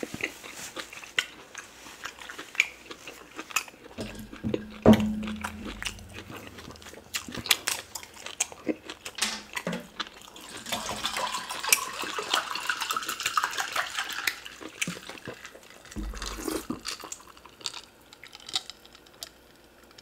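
Close-miked eating of fufu and oxtail pepper soup: chewing with wet mouth clicks and smacks. There is a short low hum about four seconds in, and a stretch of wet, hissing noise in the middle.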